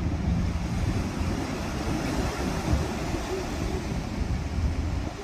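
Wind buffeting the microphone in a steady, uneven rumble, with ocean surf washing underneath.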